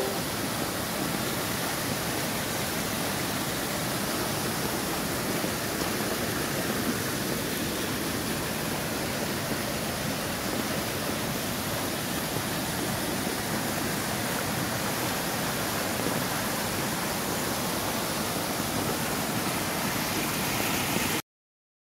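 Floodwater rushing steadily over rocks in a stream swollen by flash flooding, an even, unbroken rush of white water that cuts off suddenly near the end.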